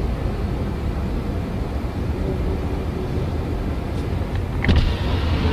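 Steady low rumble of car interior noise, with one short knock about four and a half seconds in.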